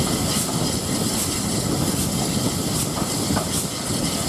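Steam-hauled train running at speed, heard from an open carriage window: a steady rush of wheel and air noise with a regular beat a little more than once a second.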